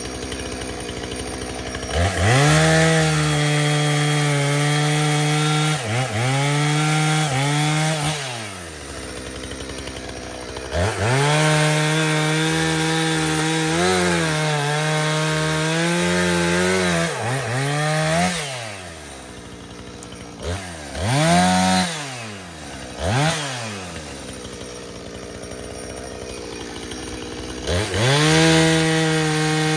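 Two-stroke chainsaw cutting through a large tree trunk: revved to full throttle and held for several seconds, dropping back to idle, then held at full throttle again for a long cut. In the middle come a few short blips of the throttle before it idles, and it goes back to full throttle near the end.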